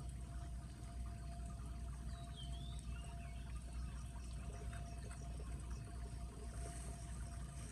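Floodwater pouring and trickling steadily into a street storm drain that has been unclogged, over a low steady rumble.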